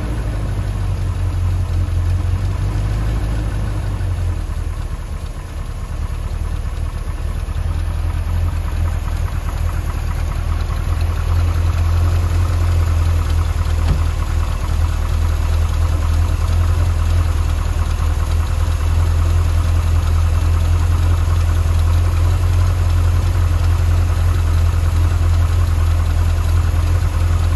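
1977 Corvette's L82 small-block V8 idling steadily, heard with the hood open; a low, even hum that dips briefly about five seconds in and then grows slightly louder.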